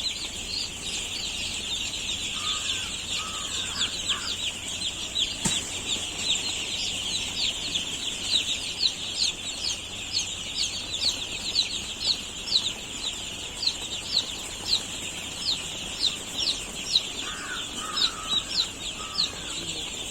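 A chicken flock: a dense, steady chorus of high-pitched peeping, with short bouts of lower clucking a couple of seconds in and again near the end, and one sharp click about five seconds in.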